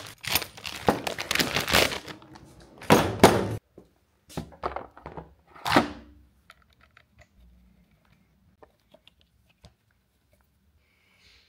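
Clear plastic parts bags being torn and crinkled by hand, loud for the first three and a half seconds. A few shorter rustles follow around five to six seconds in, then only faint clicks.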